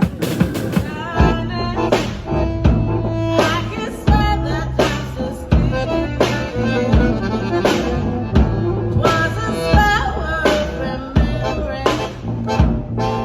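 A band playing an instrumental passage with no vocals: regular drum hits, a steady bass line and a lead instrument holding long notes.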